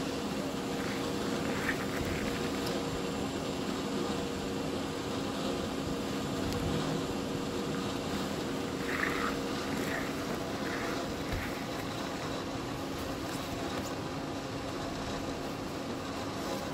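Snowmobile engine idling with a steady, even hum.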